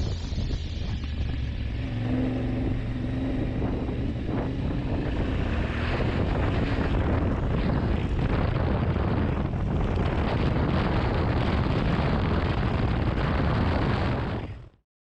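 Yamaha Ténéré 700's parallel-twin engine running under way, mixed with wind buffeting the action camera's microphone; the wind and road noise grow louder about six seconds in. The sound cuts off abruptly just before the end.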